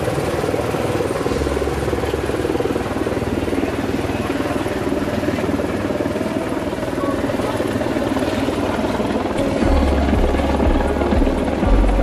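Light helicopter flying low overhead, its rotor beating with a steady, rapid chop. Bursts of deep rumble come in near the end.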